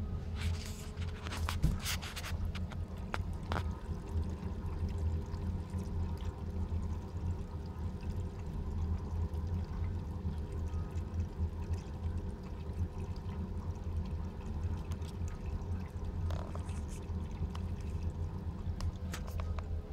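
Eheim Compact 600 submersible pump running under water in a bucket, a steady low hum, with the sound of water pouring and trickling as it circulates through the hose. A few sharp clicks in the first few seconds.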